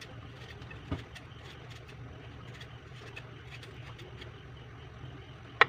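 Knife peeling a mango: faint scattered cutting clicks over a steady low hum, with one sharp knock near the end.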